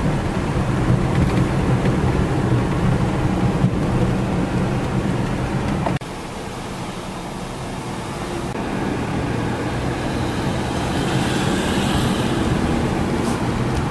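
Road noise inside a moving car: steady engine and tyre rumble with a low hum, which drops abruptly about six seconds in and then slowly builds again.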